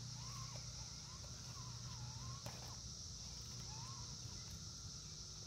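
Birds giving short slurred whistled calls every second or so over a steady high drone of insects, with one sharp click about halfway through.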